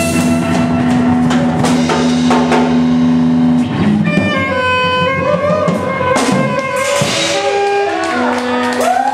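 A live improvising band: drum kit with cymbal hits, electric guitar and saxophone. A note is held for the first three and a half seconds, then the pitched parts shift, and near the end they bend up and down.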